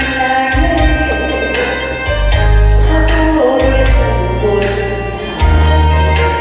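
A woman singing a Korean trot song with vibrato over an accompaniment with heavy bass and a steady beat.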